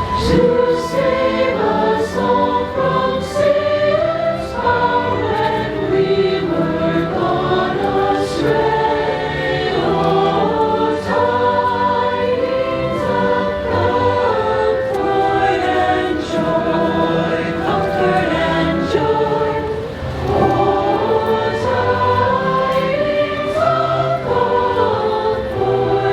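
A large choir singing in harmony, with instrumental accompaniment.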